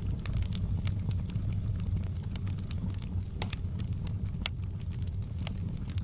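Fireplace fire crackling: irregular sharp pops and snaps over a steady low rumble of the flames, with two louder pops about three and a half and four and a half seconds in.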